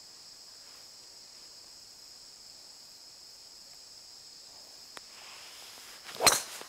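A steady, high-pitched insect chorus. Near the end, a single sharp crack of a golf club striking a ball.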